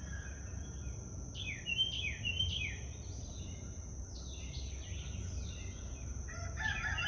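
A songbird calling in the background: a run of quick down-slurred chirps a little over a second in, fainter ones a few seconds later, and a louder run near the end, over a steady high-pitched hum.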